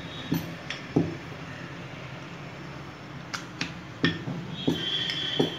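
A wooden rolling pin rolling out chapati dough on a stone countertop, with irregular knocks as the pin and hands strike the counter.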